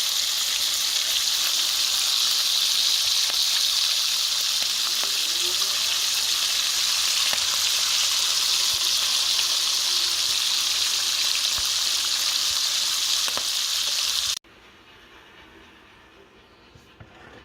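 Bacon sizzling and crackling in a hot pan: a loud, steady hiss dotted with small pops. It cuts off suddenly about fourteen seconds in, leaving only faint, scattered ticks.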